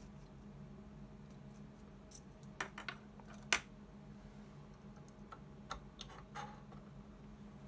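Scattered small plastic and metal clicks and taps from handling a capacitor and its leads at the input terminals of a handheld LCR meter: a quick cluster of three just before three seconds in, the sharpest about half a second later, and a few lighter ones around six seconds in. A faint steady low hum runs underneath.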